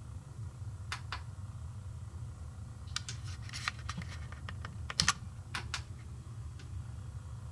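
Irregular light clicks and taps, a pair about a second in and a busier cluster from about three to five seconds, over a steady low hum.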